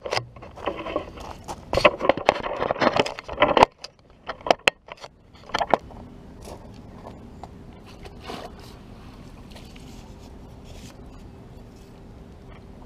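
Handling noise from a camera being moved and set down: rubbing and scraping against the microphone with sharp clicks, then a few separate knocks between about four and six seconds in. After that, a quiet steady background with a faint held hum.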